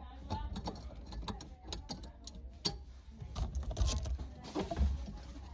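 Irregular clicks, knocks and rattles of plastic and metal parts as the car's factory head unit is worked loose and pulled out of the dashboard.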